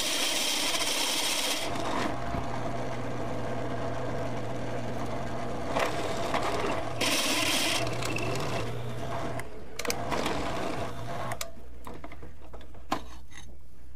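Millrite milling machine's motor running steadily while its drill bit cuts into a metal part, with two bursts of high-pitched cutting noise: one near the start and one about halfway through. The motor stops near the end, leaving a few light clicks. The bit is dull, which the owner calls well roasted.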